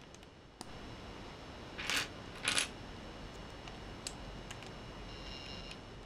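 Small plastic LEGO pieces clicking together as they are handled and pressed into place by hand. There is one sharp click about half a second in, two louder clattery clicks around two and two and a half seconds in, and a few faint ticks later.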